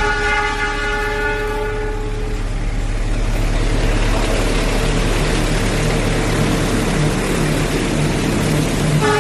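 Locomotive horn sounding a long, steady chord that fades out about two seconds in, giving way to the steady rumble and rail noise of the passing train. The horn starts again right at the end.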